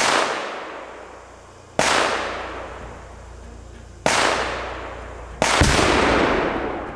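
Four loud blasts of Tannerite exploding targets going off one after another: one at once, then about two, four and five and a half seconds in. Each has a sharp crack and then a long rumbling fade. The last blast is the deepest.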